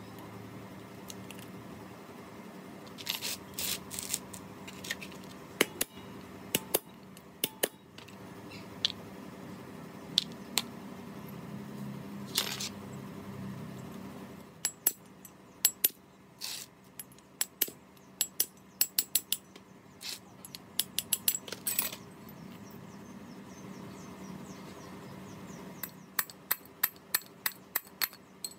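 Sharp metallic clinks and taps of small metal engine parts and hand tools being handled, in scattered clusters that are thickest in the second half, over a faint low hum.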